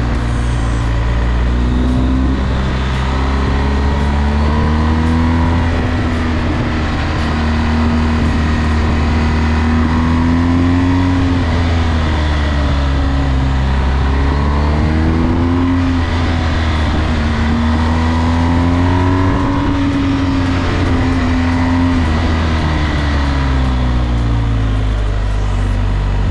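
BMW R1250GS's boxer twin engine running under way in second gear, its revs rising and falling every few seconds as the throttle is rolled on and off through the bends.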